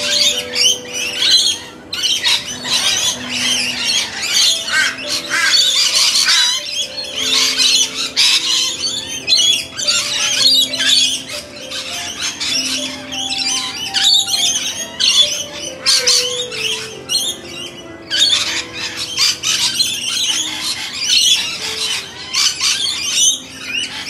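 A feeding flock of rainbow lorikeets with other birds keeps up a dense, continuous screeching and chattering. Under it, slow background music plays held notes that step from one to the next.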